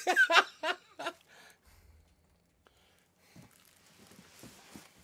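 A man laughing in short bursts for about a second, then faint scratching and rustling of a cardboard box with a cat inside it.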